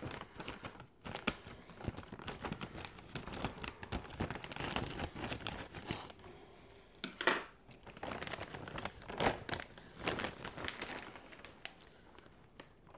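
Foil-lined plastic snack bag crinkling as it is cut open with scissors and pulled apart: a dense run of crackles with one louder rustle about seven seconds in, dying away near the end.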